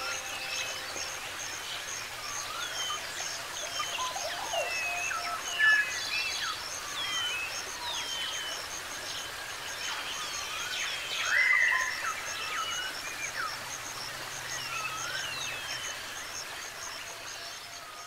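Many birds chirping and calling over one another in a natural chorus, short rising and falling notes in quick succession, over a fast, even high-pitched pulsing.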